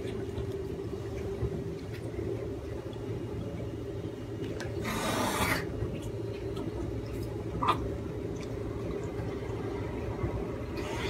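Caracal purring in a continuous low, rough rattle while its head is stroked, over a steady hum. A short breathy rush of air comes about five seconds in.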